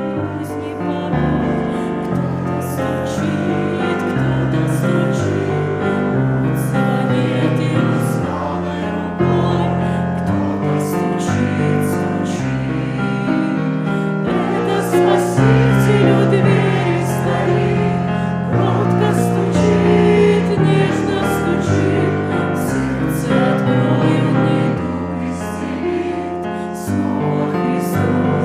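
Christian hymn music: piano chords under singing.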